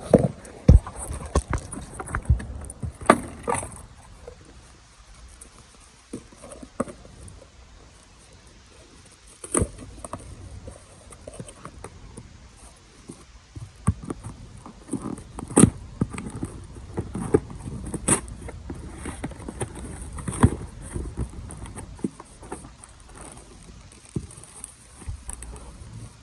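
Handling noise from cardboard boxes of car parts being opened and rummaged through close to the phone: scattered knocks, taps, scrapes and rustles. The sharpest knocks come in the first few seconds and again midway.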